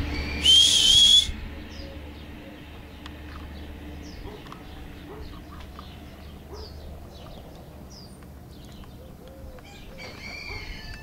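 A person whistles once, loudly and close by: a short note of about a second, rising slightly in pitch, near the start. Faint bird chirps follow over a quiet background.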